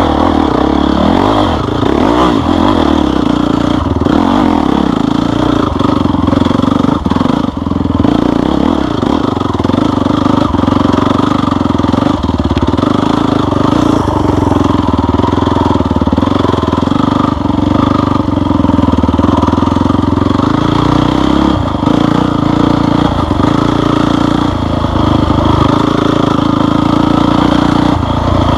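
Off-road vehicle engine running loudly and continuously under varying throttle on a trail, the pitch rising and falling a little.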